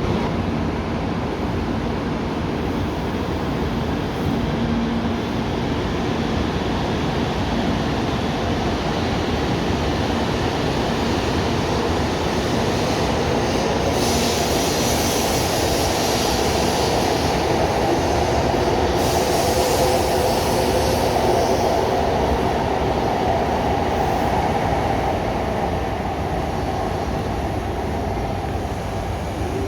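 A train running, with a steady rumble of wheels and running gear. A hiss comes in about halfway through and again a few seconds later, and the sound is loudest a little past the middle before easing off.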